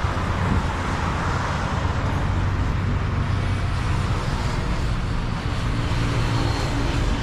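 Steady road traffic noise from motor vehicles: a continuous low rumble of engines and tyres.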